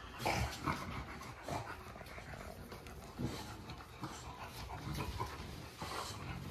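Stud dog panting in short, irregular breaths, aroused during semen collection.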